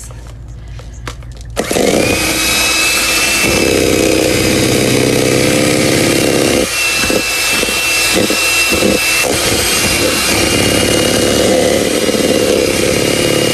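Electric hand mixer switched on about a second and a half in and running steadily, its motor giving a high whine, with its beaters in a plastic bowl; the sound turns briefly uneven a little past the middle.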